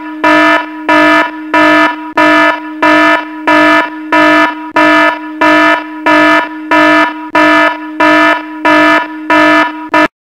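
Electronic alarm buzzer beeping in an even, rapid rhythm of about two buzzy beeps a second, each on the same pitch, stopping suddenly near the end.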